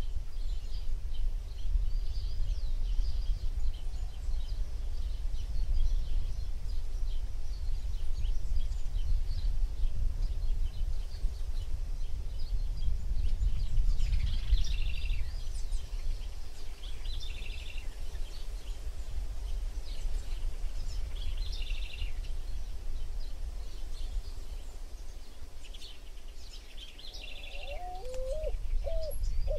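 Outdoor bird chorus: small birds chirping, with a short trilled call repeated every few seconds, over a steady low rumble. A dove starts cooing near the end.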